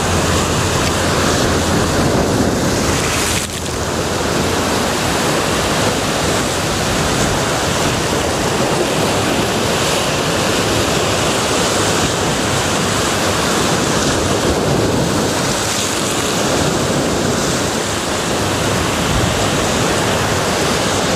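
Sea surf breaking and washing over rocks along the shoreline: a loud, steady rush of churning water.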